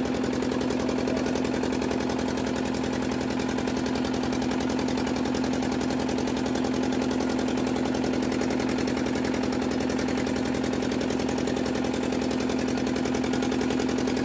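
Boat engine running steadily close by, a fast even chugging over a strong steady hum.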